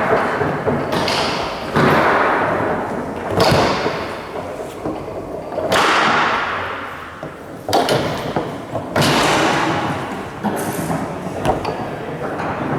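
Table football play on a Tornado foosball table: the ball and rods knock sharply and hard, about seven times at irregular intervals, each knock ringing on briefly.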